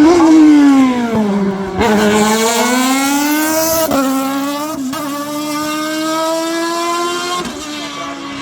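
Hillclimb race car engine at high revs under load. Its note falls for about two seconds, then rises again, with brief breaks at two gear changes, and holds a high, fairly steady note in the second half.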